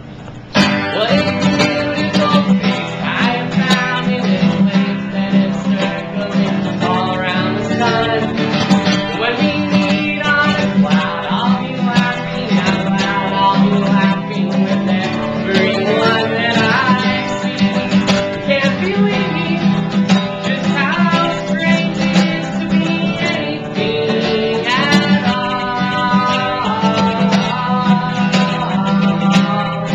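Strummed acoustic guitar with a voice singing a song over it, starting abruptly about half a second in.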